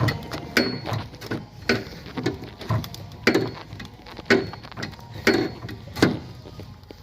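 Irregular sharp clicks and knocks, one every half second to second, from hand tools and parts being worked at a fuel filler neck hose connection.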